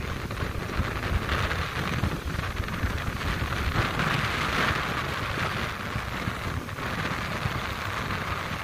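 Wind buffeting the microphone with a low rumble over the steady hiss of choppy, wind-driven water.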